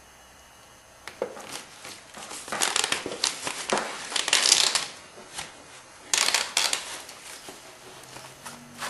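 Clear plastic KABA bird-control tape crinkling and rustling as it is handled and pressed down onto a metal standing seam. The crinkling comes in irregular bursts after a quiet first second.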